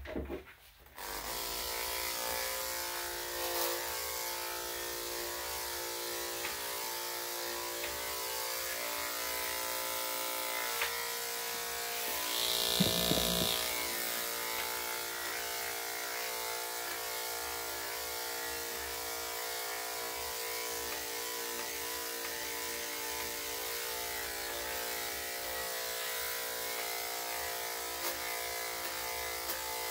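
Corded electric dog-grooming clippers switched on about a second in and running with a steady buzz. The buzz gets briefly louder about halfway through.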